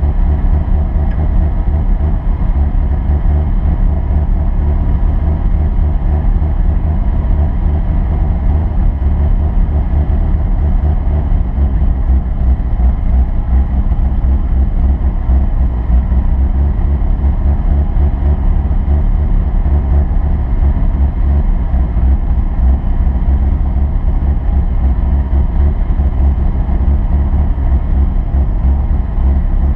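Off-road vehicle engine running steadily while driving, a constant low rumble with no changes in speed.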